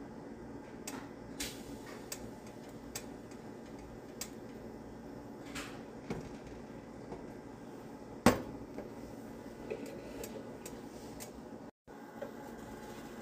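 Pancakes frying in butter in a pan, with a steady sizzle and scattered light clicks of kitchenware, and one sharp knock about eight seconds in.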